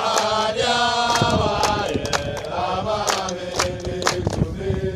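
A group of young men singing a team chant together, clapping their hands in a steady rhythm.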